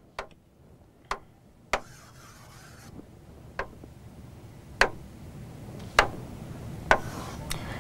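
Taps on an interactive whiteboard's touchscreen, about eight single sharp knocks at irregular spacing, with a faint brief rubbing about two seconds in.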